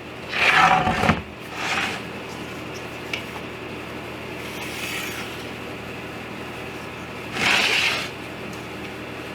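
A few short rubbing and scraping sounds, like wood pieces being handled and marked on a bench, over a steady mechanical hum. The longest of them comes near the end.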